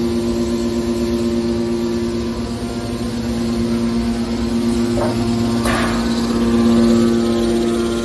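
Hydraulic scrap metal baler's electric motor and hydraulic pump running with a steady hum, with two short knocks about five seconds in.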